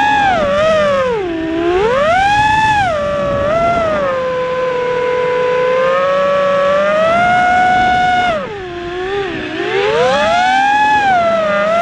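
FPV quadcopter's motors whining in flight, a steady pitched hum that rises and falls with the throttle, sagging low twice and climbing back.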